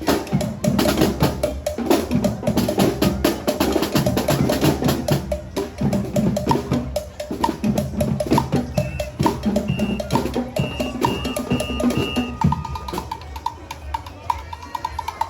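Percussion-heavy music with drums and a quick clicking, wood-block-like beat; short high notes repeat a few times past the middle.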